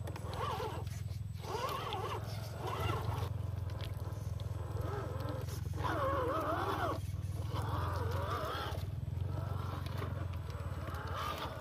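Electric motor and gearbox of an RGT EX86100 V2 1/10 scale RC crawler whining in repeated bursts, the pitch swooping up and down as the throttle is worked while the tyres churn through mud, over a steady low hum.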